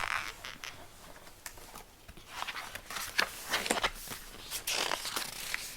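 Quiet handling noise from a picture book: soft paper rustles and light taps as it is held and its page turned.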